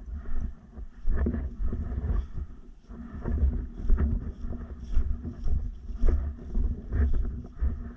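Irregular low rumbling and knocks of wind buffeting and handling noise on the microphone, with light rustling.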